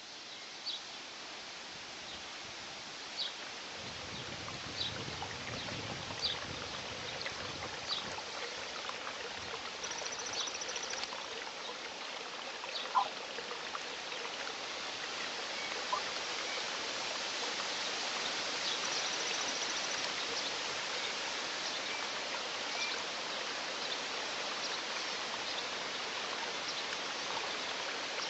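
Forest ambience: a steady rushing noise that slowly grows louder, with short high bird chirps every second or two and a couple of brief high trills.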